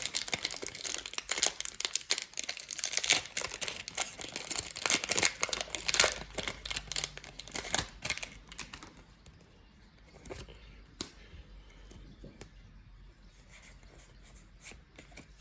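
Pokémon card booster pack being torn open: its foil wrapper crinkles and tears for about nine seconds, then only faint scattered clicks and rustles follow.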